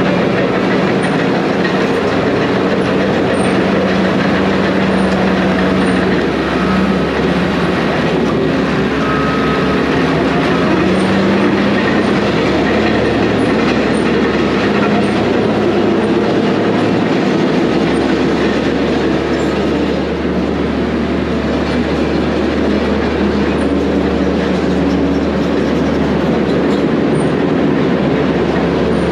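Caterpillar D4G crawler dozer running steadily while it grades and smooths rock fill, its diesel engine note shifting slightly in pitch as it works.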